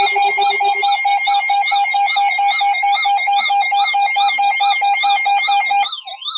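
Layered electronic emergency-alert tones: a rapid, evenly pulsing beep with a warbling high tone over it. The lower of two beeping pitches drops out about a second in, and near the end the beeping stops and a siren-like wail of rising and falling sweeps takes over.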